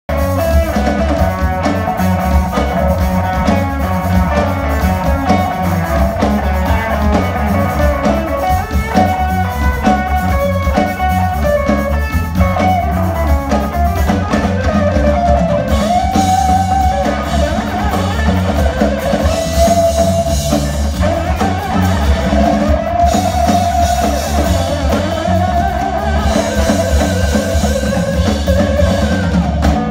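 Live band playing: amplified archtop electric guitar and electric bass over drums. In the second half the guitar lines bend and slide in pitch.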